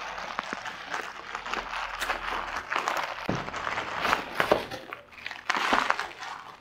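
Plastic shipping bag being pulled and torn open by hand, irregular crinkling and rustling with small crackles.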